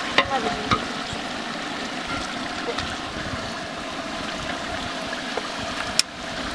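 Meat simmering in sauce in a large aluminium pot over a wood fire: a steady bubbling hiss. A metal ladle clinks sharply against the pot a couple of times near the start and once more about six seconds in.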